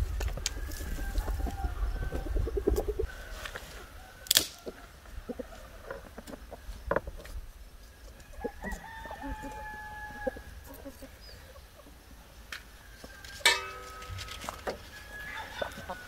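Hens clucking, and a rooster crowing once near the end. A few sharp wooden knocks come from kindling sticks being split.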